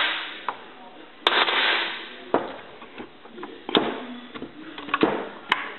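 Metal clicks and clunks from a gearbox's shift selector, shift fork and gears being worked by hand in an open transmission case, as the range shift is moved from low toward high. There are about five sharp clicks, roughly a second apart, each with a brief ring after it.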